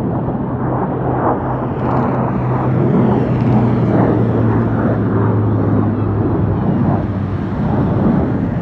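Formation of F-16 fighter jets flying past: steady jet engine noise with a low hum that drops slightly in pitch partway through.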